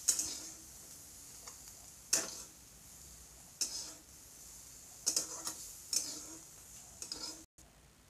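Steel ladle clinking and scraping against a steel kadhai and bowl as fried bitter gourd is scooped out, about half a dozen separate clinks a second or so apart.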